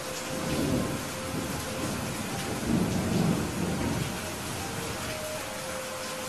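Thunderstorm: steady heavy rain with rolling thunder, a low rumble swelling about half a second in and a louder one around three seconds in.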